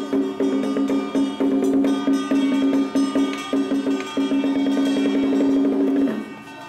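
Traditional temple ritual music: rapid wooden percussion strikes, several a second, over a held low tone, breaking off near the end.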